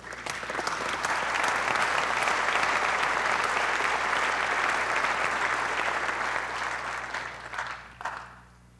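Audience applauding: scattered claps swell within the first second into full, steady applause, which thins out and dies away about eight seconds in.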